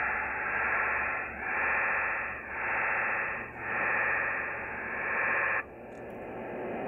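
Shortwave receiver hissing static between voice transmissions on a sideband net, swelling and dipping about once a second. It drops sharply to a quieter hiss near the end.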